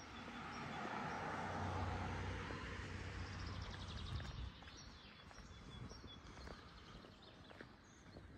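A car passing along a residential street: its tyre and engine noise swells and then fades within the first four or five seconds. Small birds chirp faintly throughout.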